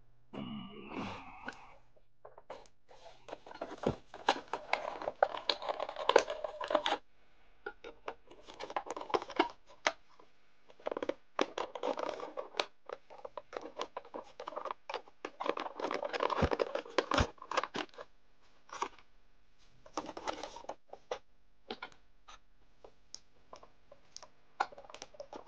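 Action-figure packaging being handled: cardboard box and plastic insert rustling, scraping and crinkling, with many sharp clicks and snaps, in irregular bursts as the toy is worked loose.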